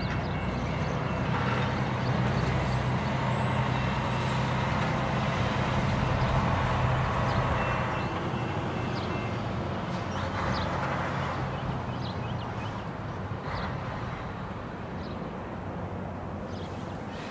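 Diesel-electric locomotive engines running with a low, steady drone as the locomotives move slowly away, the drone growing weaker through the second half.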